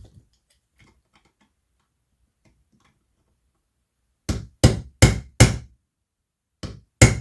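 A small hammer tapping a stubborn pin out of an air rifle's action: four quick sharp strikes about four seconds in, then two more near the end, after a few faint ticks.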